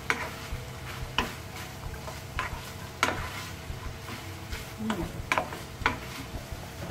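Wooden spatula stirring and scraping minced beef, tomato and kidney beans around a non-stick frying pan, in irregular strokes about once a second, over the steady sizzle of the mince frying.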